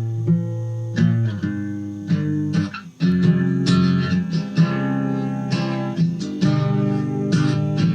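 Instrumental passage of a song: acoustic guitar strumming chords, with a brief drop in level just before three seconds in.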